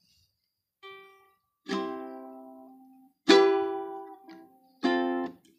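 Background music: plucked string chords played one at a time, four in all, each struck sharply and left to ring out and fade, with short gaps between.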